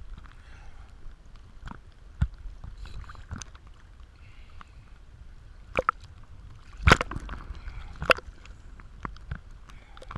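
Choppy water sloshing and gurgling against a waterproof action-camera housing bobbing at the surface, with several sharp slaps. The loudest slap comes about seven seconds in.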